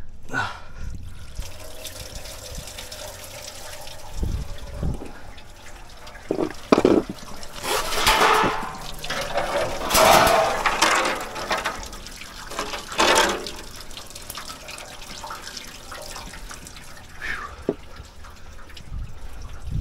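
Antifreeze coolant pouring and splashing from a just-freed coolant hose into a drain pan, with louder gushes near the middle and a few knocks and thumps of hands and tools at the hoses.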